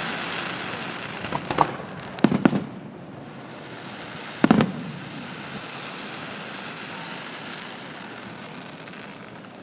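Fireworks going off: a single bang, then a quick cluster of bangs, and the loudest bang about four and a half seconds in, over a steady hiss that slowly fades.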